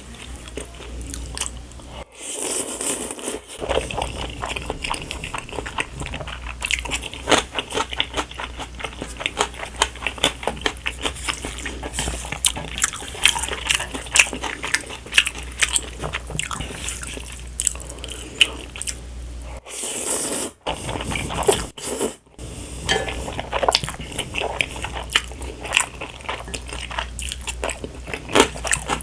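Close-miked mouth sounds of a person eating spicy stir-fried instant noodles: wet chewing, biting and smacking in a dense, irregular patter, with a few brief silent gaps.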